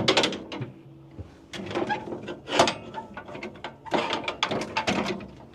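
2-inch ratchet straps being hung on the hooks of a truck's headache rack and slid along the row, their metal ratchets clanking and rattling against the rack in irregular bursts.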